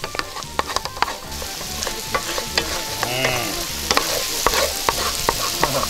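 Peppers and eggs sizzling in a metal frying pan while a wooden spoon stirs and turns them, knocking and scraping against the pan in many quick, irregular clicks.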